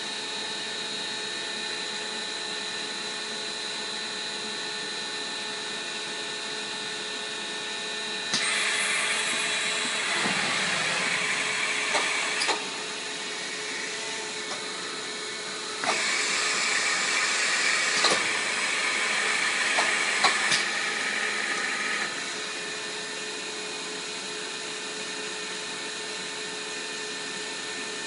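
FMS ISX-32 vertical CNC machining center running with a steady hum of its motors. Two louder whirring stretches, of about four and six seconds, begin about eight and sixteen seconds in, with a few clicks in them.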